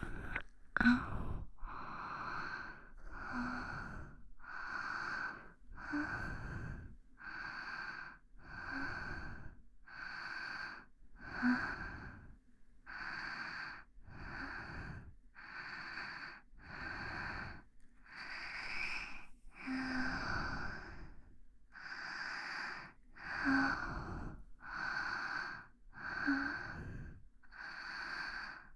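A person's breathing close to the microphone, a steady even rhythm of breath sounds about one a second, some carrying a faint touch of voice.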